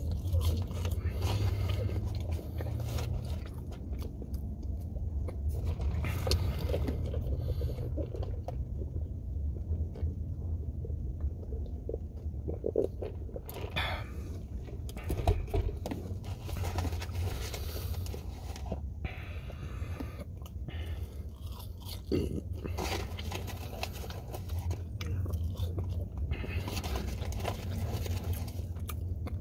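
A person chewing and biting into a fast-food burger-and-fries meal close to the microphone, with irregular crunchy bites and scrapes, over a steady low hum.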